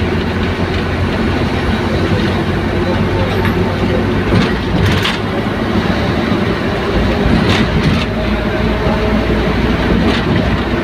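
Steady, loud rumbling of a moving vehicle, with a few sharp clacks scattered through it.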